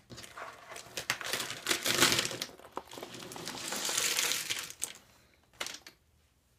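Rustling, crinkling noise lasting about five seconds, loudest about two seconds in, then a couple of short knocks.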